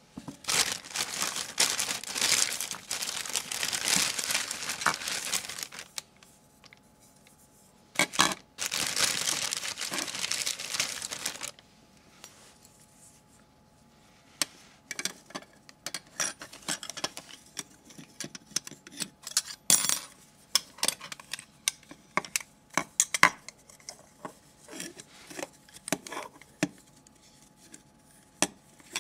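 Clear plastic parts bag crinkling as it is handled and pulled open, in two long stretches. Then scattered light clicks and rustles as the black elbow fitting and loose bolts inside are handled.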